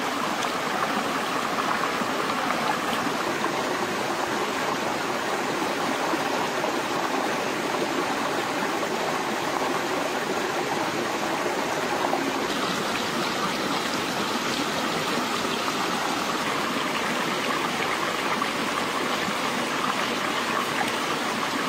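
Shallow rocky stream running steadily, water rushing and trickling over stones.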